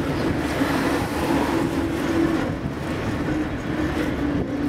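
Vintage 1904 ASEA-built SSB A2 electric tram running along street track: wheels rolling on the rails, with a steady hum that shifts slightly in pitch. Heard from the open front platform.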